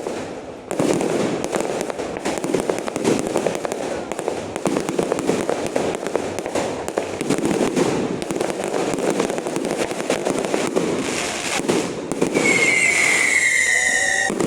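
Fireworks going off in a dense, continuous barrage of rapid crackling bangs. A high whistling tone, falling slightly, rises above the crackle about twelve seconds in.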